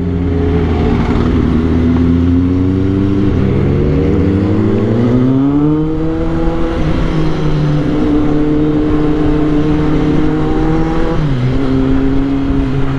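Motorcycle engine under way, heard from the rider's own bike: a steady engine note that rises in pitch as the bike accelerates about four to six seconds in, holds, then drops suddenly just after eleven seconds.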